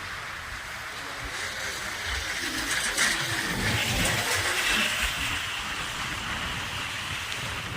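Steady rushing of water, swelling louder for a couple of seconds around the middle.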